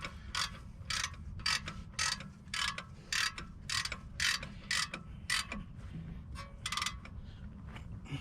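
Ratchet wrench on a 15 mm bolt of a rear brake caliper. Short bursts of ratchet clicking come about twice a second, one with each swing of the handle, and stop about seven seconds in.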